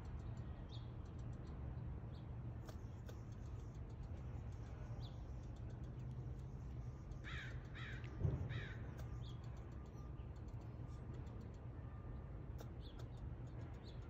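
Tree squirrel giving three harsh, falling alarm barks a little past halfway, with faint ticking chucks scattered before and after; a low thump lands just after the second bark.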